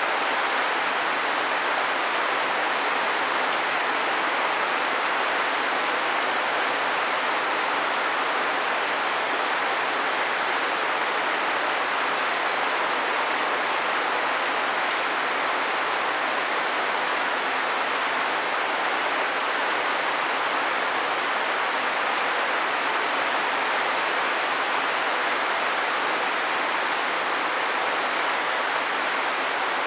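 Steady rain falling, an even hiss that holds without break or change.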